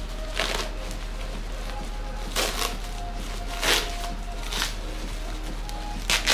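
Packaging wrap rustling and crinkling in several short bursts as a wrapped fairing part is handled and unwrapped, over faint background music.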